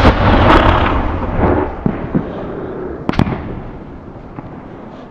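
Salute reports from a 4-inch titanium salute shell. A loud bang at the start trails off into a long echoing rumble, a few small cracks follow, and another sharp bang comes about three seconds in.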